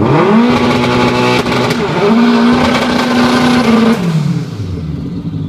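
Drag car doing a burnout: the engine revs sharply up to high rpm and is held there with the tyres spinning. It dips briefly about two seconds in, then drops back toward idle about four seconds in.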